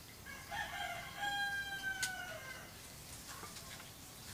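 A rooster crowing once: a broken start, then one long held note that sags in pitch near its end. A single sharp tap lands partway through the crow.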